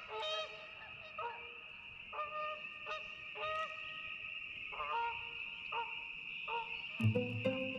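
Geese honking, short single calls repeated every half second to a second over a steady high hiss. About seven seconds in, music with a low beat comes in.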